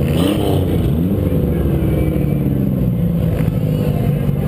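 Small demolition-derby car's engine revving up twice in the first second or so, then running hard at fairly steady revs.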